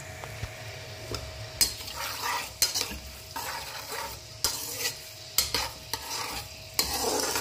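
Chopped onions frying in hot oil in a metal pan, sizzling steadily. From about a second and a half in, a perforated steel skimmer spoon stirs them, scraping and clinking against the pan again and again.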